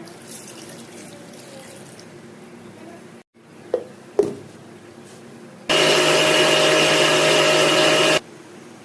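Electric kitchen blender running for about two and a half seconds, blending mango for juice; it starts and stops abruptly. Two sharp knocks come just before it.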